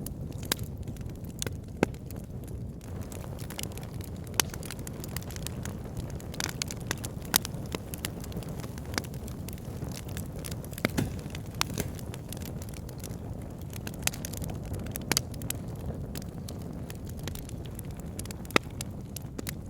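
Burning wood logs crackling and popping: irregular sharp snaps over a steady low rumble of the fire.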